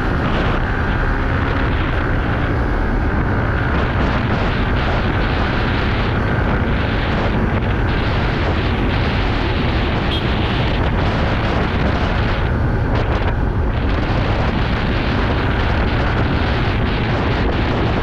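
Yamaha R15 V3 motorcycle's single-cylinder engine running steadily at road speed, heavily mixed with wind buffeting on the microphone.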